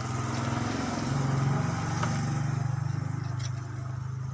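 A motor engine running steadily with a fast low pulse, swelling about a second and a half in and then slowly fading.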